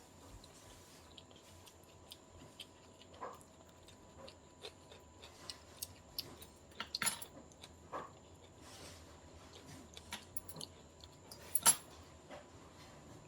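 Eating sounds from a sushi meal: scattered light clicks and taps of utensils against a tray, with soft chewing. Two louder clacks come about seven seconds in and near the end.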